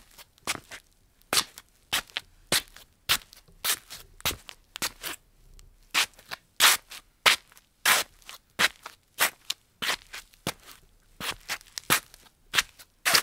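Slippers shuffling on a tile floor: a steady run of short, dry scuffs, about two a second, with brief pauses between some steps.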